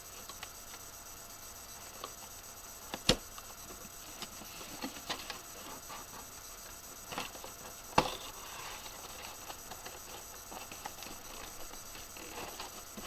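Scissors snipping and plastic-and-cardboard toy packaging being handled: scattered small clicks and rustles, with two sharp clacks, one about three seconds in and one about eight seconds in.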